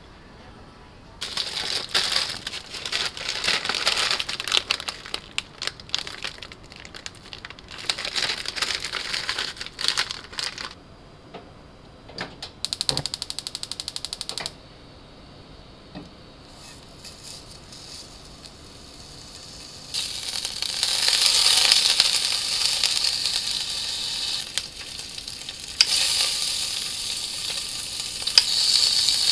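Pork slices sizzling in a hot frying pan from about two-thirds of the way in, loud and steady. Before that come spells of crackling noise and a short, fast, even clicking of about two seconds.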